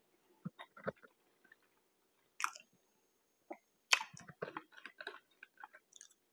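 Close-miked chewing of McDonald's chicken nuggets: soft wet mouth clicks and smacks, with a few sharper, louder bites about two and a half and four seconds in.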